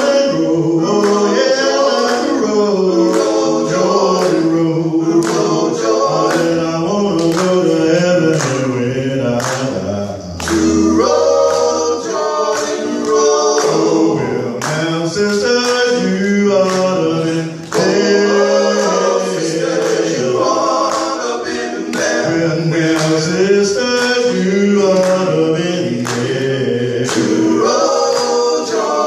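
Five-man male gospel vocal group singing in harmony through microphones, with steady hand claps keeping the beat.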